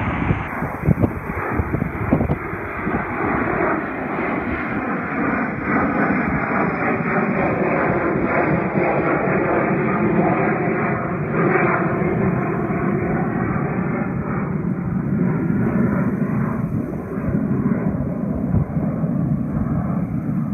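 Jet engines of a Dassault Falcon trijet business jet at climb power, a steady jet engine noise as the aircraft climbs away after takeoff.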